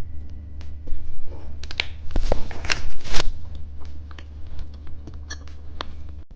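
Hands handling plastic candy packaging: irregular rustling and small clicks, with a louder flurry about two to three seconds in, over a steady low hum.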